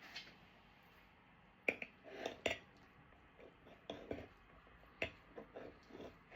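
Cutlery clinking against a dish in a handful of short, separate taps while a meal is eaten.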